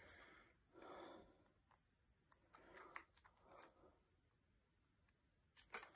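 Near silence with faint rustling of dart flights being handled and fitted onto dart shafts, and a couple of short clicks near the end as a flight is pushed home.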